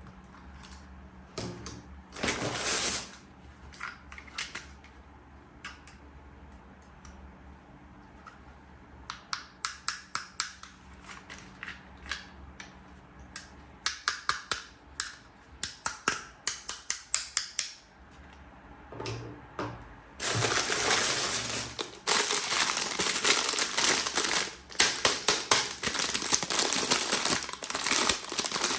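Plastic toy parts and packaging being handled: scattered clicks, then runs of sharp, evenly spaced plastic clicks. About two-thirds of the way in, steady crinkling and crackling of plastic packaging takes over.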